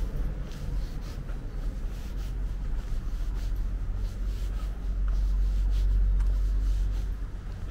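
Street ambience during a walk: a low, steady rumble that swells about five seconds in, with faint footsteps on the pavement at about two steps a second.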